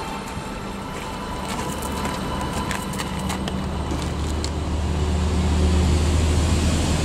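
A motor vehicle's engine running steadily, growing louder in the second half, with scattered light clicks in the first half.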